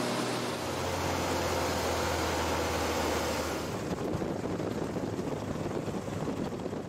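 Steady engine and propeller noise of a light propeller aircraft heard inside the cabin, with a low drone under it. About four seconds in the drone drops away and the noise turns rougher as the plane rolls along the runway.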